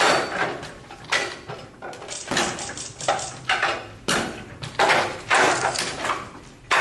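Wing Chun wooden dummy (muk yan jong) being struck: forearms and hands hitting its wooden arms and trunk in an irregular run of sharp knocks and clacks, several close together.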